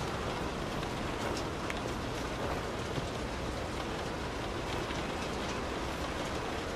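Steady rain drumming on a car's roof and windows, heard from inside the cabin, with scattered individual drop taps over an even patter.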